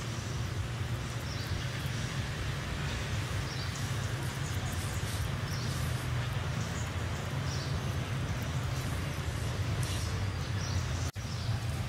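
Steady outdoor background noise with a low rumble, and faint high chirps now and then; the sound drops out for an instant near the end.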